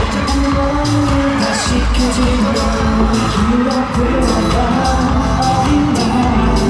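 Live K-pop song played loud through concert speakers: a sung melody over a steady drum beat with a heavy, boomy low end.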